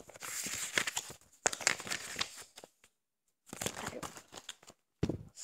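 Paper rustling and crinkling in three bursts as a booklet is handled, then a dull thump near the end.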